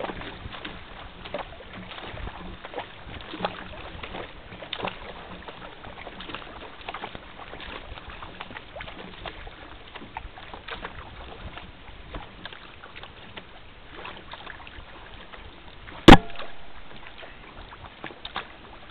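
Water splashing and rushing along the rotomolded plastic hull of an Asiak Petrel sea kayak paddled at speed, with short splashes from the paddle strokes. Late on, a single sharp knock, the loudest sound, rings out briefly.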